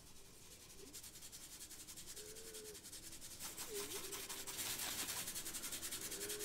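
A small stiff-bristled brush scrubbing the grout between floor tiles in quick, rapid back-and-forth strokes, getting louder as the scrubbing grows more vigorous.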